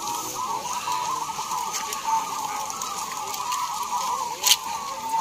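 Many caged zebra doves cooing at once, their overlapping coos blending into a continuous chorus. There is one sharp click about four and a half seconds in.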